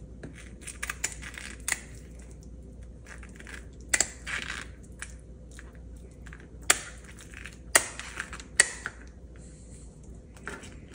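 Kitchen shears snipping through the spiny fins of a whole raw snapper: a series of sharp, irregularly spaced snips, several with a short rasp as the blades cut through the fin spines.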